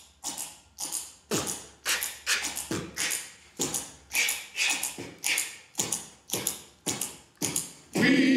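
Rhythmic percussion of sharp hits, about two a second, some in quick pairs and a few with a deep thud. A cappella group singing comes in over it near the end.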